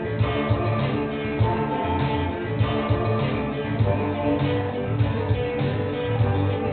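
Seven-string electric guitar played live through a PA, a Celtic-flavoured rock/metal tune with dense, sustained notes over a heavy low end; the guitar sounds a little muddy and lost in the mix.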